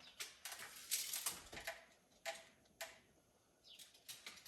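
A run of faint clicks, taps and short scrapes from hand work, measuring and handling wood pieces and tools. A few taps ring briefly, about two and a half seconds in.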